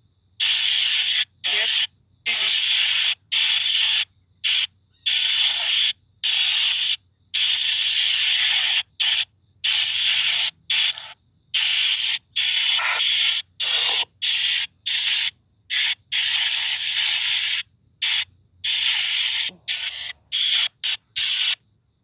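Shadows Box spirit box app playing white-noise static in choppy, irregular bursts, each about half a second to a second and a half long with short silences between. It cuts off near the end as the app is switched off.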